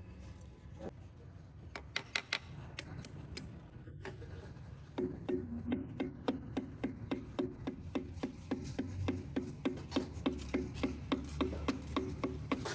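Tool and metal-part handling noises: a few scattered clicks and taps, then, about five seconds in, a steady low hum sets in with sharp clicks repeating evenly about two to three times a second.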